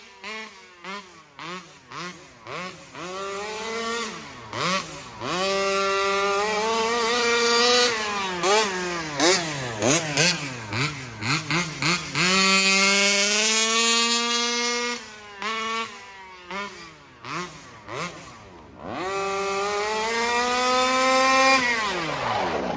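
36cc two-stroke engine of a Rovan FCT-05 RC car revving hard. It starts with short throttle blips, then holds high revs in three longer pulls, the pitch rising and falling as it accelerates and backs off, and falling away near the end. The engine is running on a rich tune.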